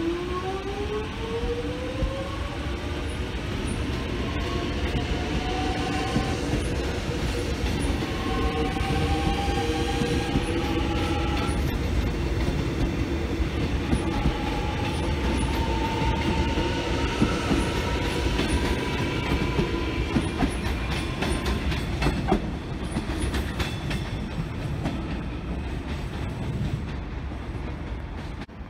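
X'Trapolis electric suburban train pulling away and accelerating: its traction motors give a whine that rises in pitch in several steps, over the rumble and clickety-clack of its wheels on the rails.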